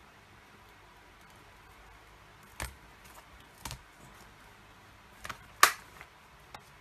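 A few short clicks and taps from handling rubber cling stamps and their clear plastic stamp case on the desk, the loudest about five and a half seconds in.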